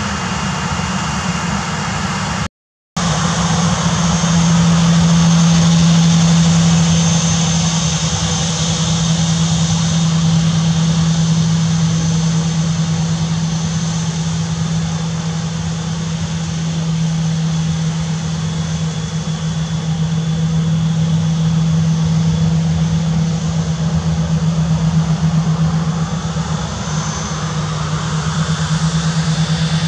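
Boeing 737-800's CFM56 jet engines running steadily at low power as the airliner taxis and turns on the runway: a steady drone with a low hum and a faint high whine. The audio cuts out for a moment about two and a half seconds in.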